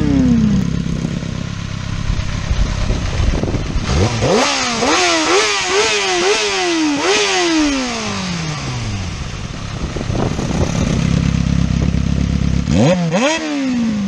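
Sport motorcycle engine idling and revved through its cut-out-valve exhaust. Midway there is a run of quick throttle blips, each rise dropping back, and the engine settles to idle. Near the end it gives one more sharp rev.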